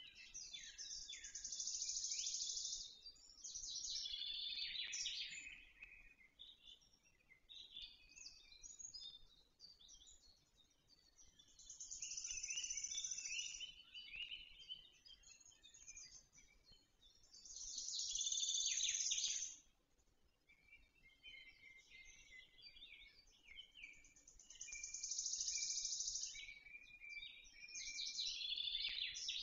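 Forest songbirds singing: a series of high-pitched song phrases, each two to three seconds long, coming every few seconds with quieter chirps between them.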